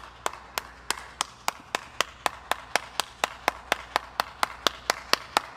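One person clapping alone in a steady, even rhythm, about three claps a second, over a faint low hum.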